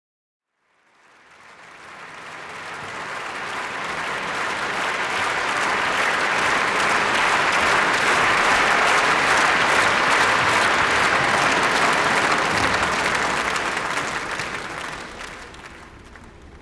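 Audience applauding: the clapping rises from silence, swells to a peak and dies away near the end.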